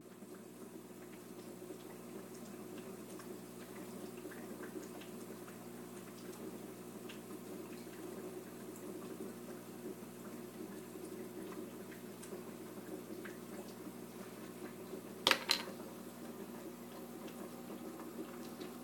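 Aquarium sponge filter bubbling with a steady low hum from its air supply, with faint ticks of bubbles and water. Two sharp clicks close together about fifteen seconds in.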